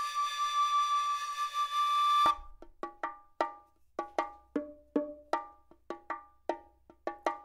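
Background music: a long held flute-like note, then from about two seconds in a run of short, quickly fading struck or plucked notes, a few a second.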